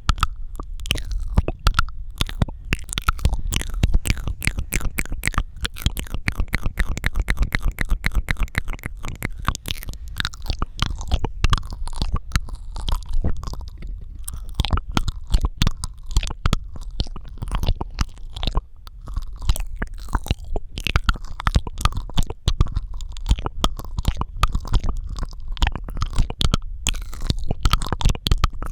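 Close-miked ASMR mouth sounds: a dense, rapid stream of wet clicks and smacks from the lips and tongue, over a constant low rumble.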